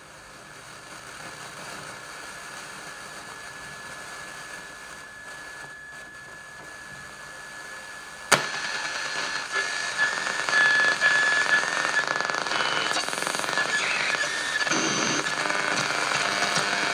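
Static hiss from a Sony CF-1490 portable radio's speaker as the dial is tuned between stations. About eight seconds in, a sharp click as a key on top of the set is pressed, then louder static with steady whistling tones and hash as the dial sweeps across the band.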